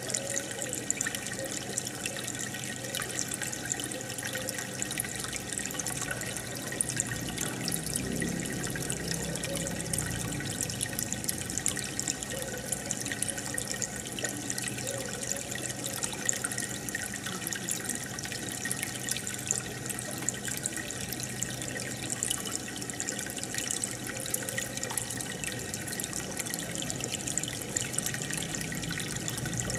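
Aquarium water bubbling and trickling steadily, with many small bubble ticks, from the tank's air bubbler and filter.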